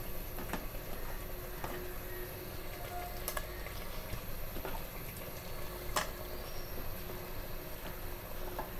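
Chicken curry with its spice paste sizzling and bubbling in the cooking pot, with a few light clicks and pops scattered through, the clearest about six seconds in.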